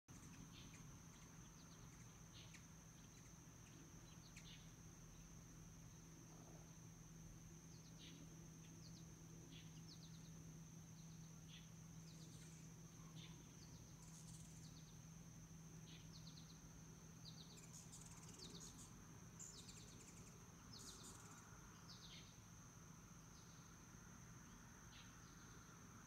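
Faint garden ambience: short, high, falling bird chirps scattered throughout, with several quick ones together near the middle and after it. Under them runs a steady, high-pitched insect drone and a low steady hum.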